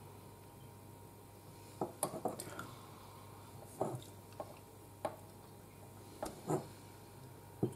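Handling noises: a scattering of light clicks and knocks as a painted figure bust on its plinth is turned and shifted in the hands, a cluster about two seconds in and single ones spread out to near the end.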